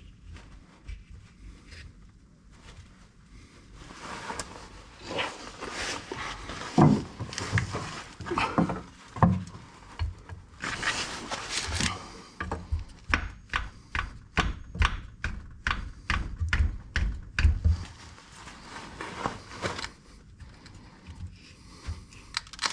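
Hand tools and metal parts being worked on an Austin Allegro's transmission gear selector: irregular scraping and knocking, then a run of sharp, evenly spaced clicks, about three a second, for some five seconds.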